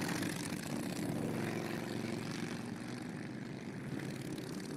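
Steady drone of motorcycle engines, an even low hum that fades slightly, laid as a sound effect under bikes crossing an intersection.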